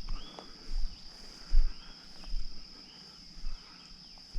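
A steady, high-pitched insect drone, with dull low thumps about once a second that are the loudest sound, and a few short chirps.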